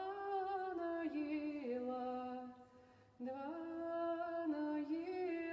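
Solo female voice singing a Russian spiritual folk verse unaccompanied, drawing out long notes that step down in pitch. About two and a half seconds in she breaks for a breath, then comes back in on a higher note.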